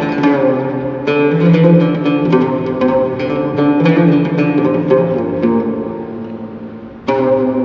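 Oud played with a plectrum (risha), a melody of plucked notes. The phrase dies away towards the end, and a new loud phrase starts with a strong attack about seven seconds in.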